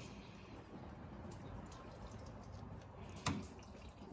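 Faint trickle and drip of engine coolant draining from a disconnected upper coolant hose onto shop rags, with a single sharp click about three seconds in.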